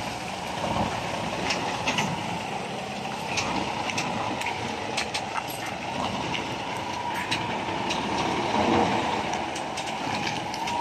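A Hino 700 tractor truck's diesel engine running as the rig with its container trailer is manoeuvred, with scattered sharp clicks and knocks throughout.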